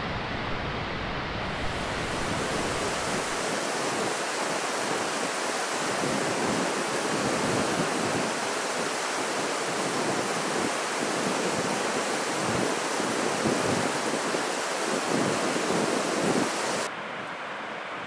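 Steady, even rushing of falling water in a gorge, the waterfall and river below it. Near the end it changes suddenly to a quieter, duller rush.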